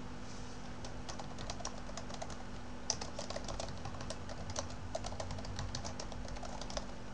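Typing on a computer keyboard: a run of quick, irregular key clicks over a faint steady hum.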